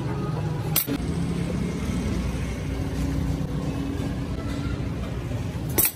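Electric forge blower running steadily, a low mechanical hum as it blows air into the coal fire. Two sharp clicks break the hum, about a second in and just before the end.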